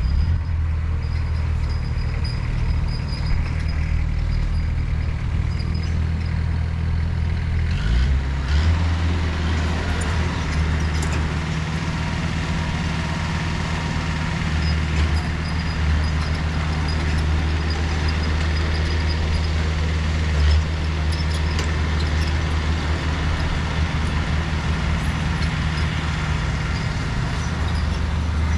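Heavy construction machinery's diesel engine running steadily, stepping up to higher revs about eight seconds in and holding there, with a few metallic knocks around then.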